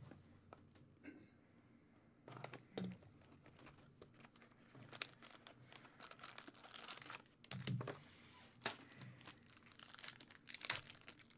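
Trading-card pack wrapper being torn open and crinkled by hand, then cards being handled. The sound comes as short, faint, irregular rustles and crackles.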